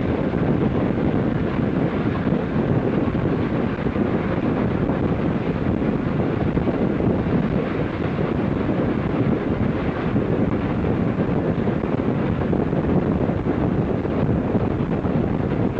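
Steady rushing, rumbling noise with no clear beat: wind buffeting the microphone over the running noise of a moving train.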